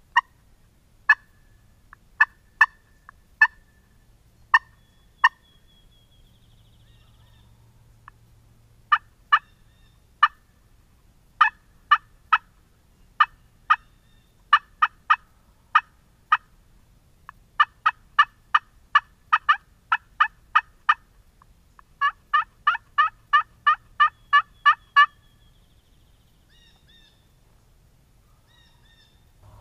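Turkey yelping: a long series of short, sharp notes, sparse at first, then settling into steady runs that speed up to about three notes a second before stopping near the end.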